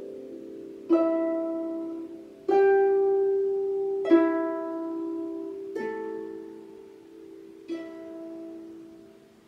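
Celtic lever harp playing five slow plucked chords, each ringing out and fading, about a second and a half apart, the last two softer: the closing bars of a piece.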